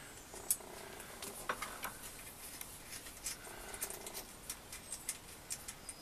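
Light, irregular metallic clicks and taps of a spanner working the nuts that hold a four-jaw chuck onto a lathe spindle, as the nuts are slackened off.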